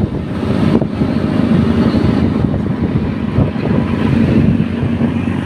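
Steady motor-vehicle rumble and road noise, with wind buffeting the microphone.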